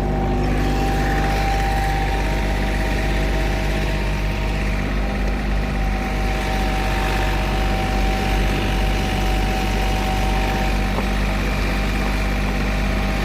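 Heavy diesel engine of asphalt paving machinery running steadily, with a constant high whine over the low engine drone.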